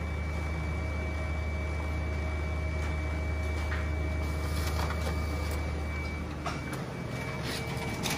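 Canon imageRUNNER ADVANCE C5200-series colour laser copier running a print job, feeding a sheet of plastic paper from its bypass tray. It makes a steady low hum with a thin high whine and a few light clicks midway. The hum drops away about six seconds in.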